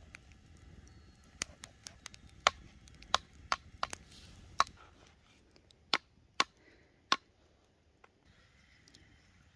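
Kitchen knife chopping lamb offal on a wooden log stump: a dozen or so sharp, uneven knocks of the blade hitting the wood, stopping about seven seconds in.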